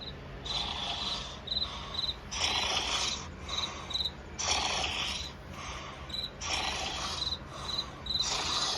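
Cricket chirping steadily near 4 kHz, short pulsed chirps about twice a second. Breathy snores swell up over it every second or two and are the loudest sound.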